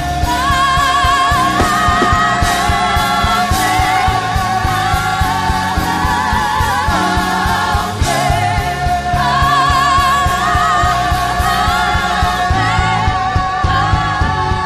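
Christian worship song: a wavering sung melody over full band backing with a steady beat.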